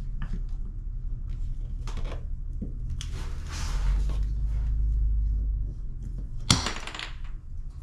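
PEX pipe being cut with a hand pipe cutter: quiet clicks and rustling of the tool working on the plastic pipe, then one sharp snap about six and a half seconds in as the cutter goes through.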